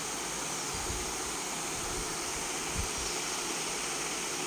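Steady, even hiss of background room noise with no speech, and a faint low bump about three seconds in.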